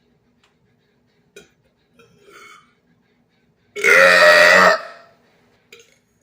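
A man's single loud belch, about a second long, starting a little under four seconds in and dying away at the end, after a few faint clicks.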